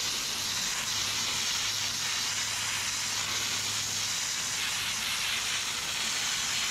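Water jet spraying steadily onto whole mullet to blast their scales off: a continuous hiss of water.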